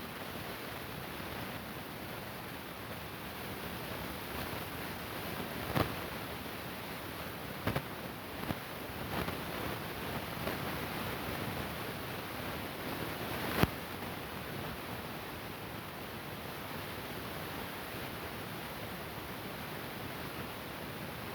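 Steady hiss of a recording's noise floor, broken by a few short sharp clicks or knocks, the loudest a little past the middle.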